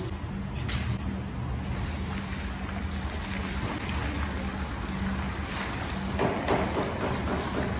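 Hot oil sizzling and crackling in a giant pilaf kazan as pieces of raw meat and fat are dropped in, over a steady low hum. The crackling swells about six seconds in.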